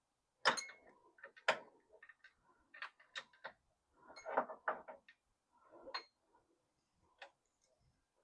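Irregular metallic clicks and clinks of a wrench working on the alternator mounting bolts in a car's engine bay, with two sharp knocks early on and scattered ticks after.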